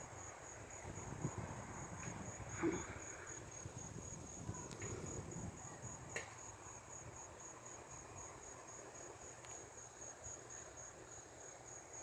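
Insect trilling steadily in rapid, evenly spaced high-pitched pulses, faint, over a low rumble, with a soft knock about three seconds in.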